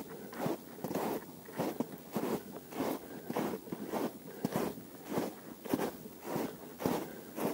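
Footsteps crunching in snow at a steady walking pace, a little under two steps a second.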